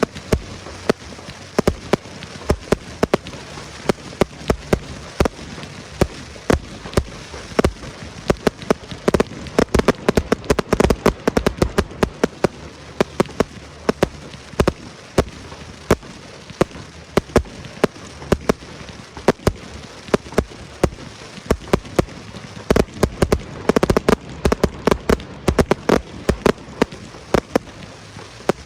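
Aerial fireworks display: a steady barrage of sharp bangs, often several a second, over a constant crackle. The bangs come thickest about a third of the way in and again near the end.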